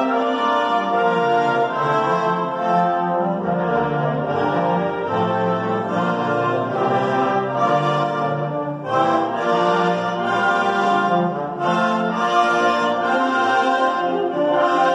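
High school concert band playing, with the brass carrying full held chords that move from note to note at a steady, fairly loud level.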